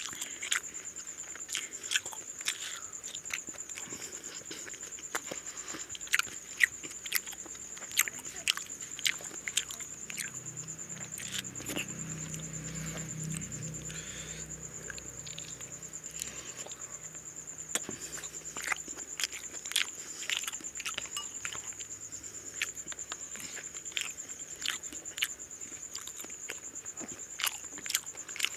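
A person eating rice and mutton curry by hand, close to the microphone: irregular wet mouth smacks and chewing clicks, a few a second, pausing now and then.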